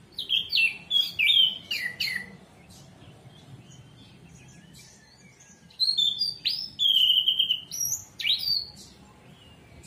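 Orange-headed thrush singing: two bursts of quick, varied whistled notes a few seconds apart, the second with a longer held note, and faint chirps in the pause between.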